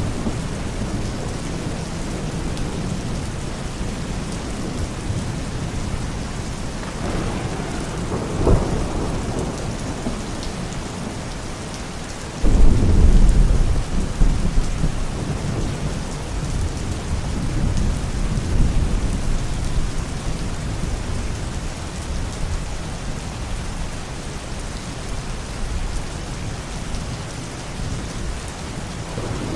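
Steady rain during a thunderstorm, with a sharp crack of thunder about eight seconds in. About twelve seconds in, a loud low thunderclap starts suddenly and rumbles on for several seconds as it fades.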